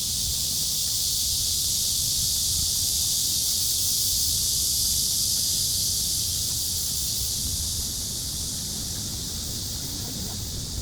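Summer cicadas droning in a dense, steady chorus, a high hiss that eases slightly near the end, over a low rumble.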